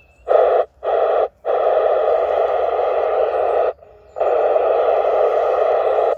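CB radio receiver static: loud bursts of hiss from the transceiver's speaker that switch on and off abruptly four times, two short ones and then two long ones, as the squelch opens on incoming carriers after a call on channel 35.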